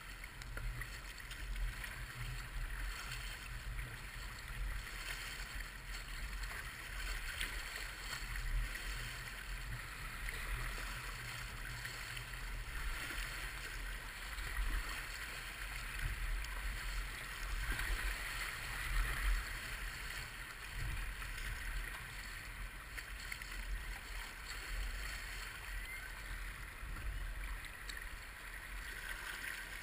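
River water rushing and splashing steadily around a small boat moving on the river, with a low rumble underneath.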